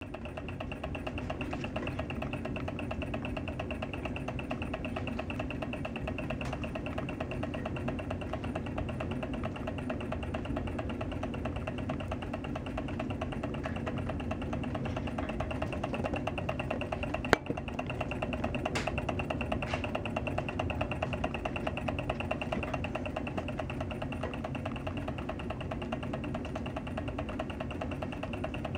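Miniature low-temperature-differential Stirling engine running smoothly, its flywheel and linkage giving a fast, steady mechanical ticking whirr. One sharp click a little past halfway.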